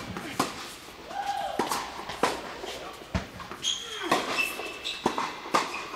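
A tennis rally on a hard court: a string of sharp pops as racquets strike the ball and the ball bounces, about one every half second to a second. Short high squeaks from sneakers on the court come a little past the middle.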